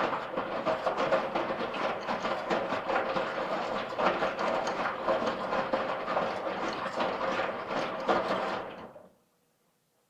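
Washing machine drum turning during the wash, the load tumbling with a dense clattering rattle, stopping about nine seconds in.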